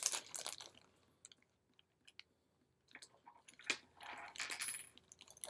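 Close handling noise of small parts and tools on a work surface: sharp clicks and rustling scrapes in two clusters, one at the start and another about four seconds in, with a few single ticks between them.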